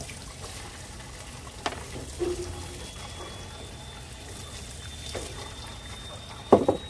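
Diesel pouring in a steady stream from the open drain port under a vehicle's fuel tank and splashing into a tub, as a brass valve is screwed into the port. A short knock comes about a second and a half in, a faint thin whistle joins about two seconds in, and a brief loud sound near the end.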